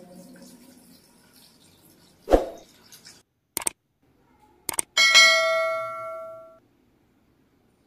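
A soft thump, then two short clicks about a second apart, then a bright bell ding that rings out for about a second and a half: the click-and-bell sound effect of a subscribe-button animation.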